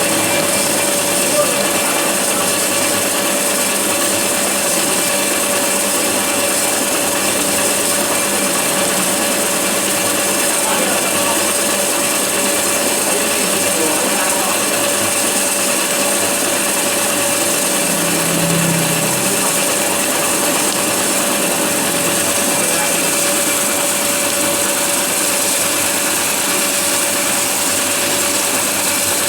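Metal lathe running steadily while cutting a gear blank: a constant machine hum with an even scraping hiss of metal being worked.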